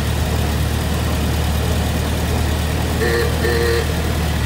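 1923 Ford Model T's four-cylinder engine running steadily as the car drives along, with a low hum. Two short beeps sound close together about three seconds in.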